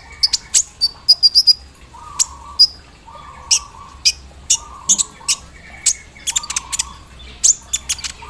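Kolibri ninja sunbird singing: a fast chattering run of sharp ticks and brief high whistled notes, with a short buzzy note repeated about once a second.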